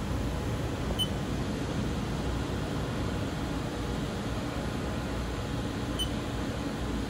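Two short, high beeps from the Haas CNC control's keypad as keys are pressed, one about a second in and another about five seconds later. Under them runs a steady hum from the running Haas VF-2 vertical machining center.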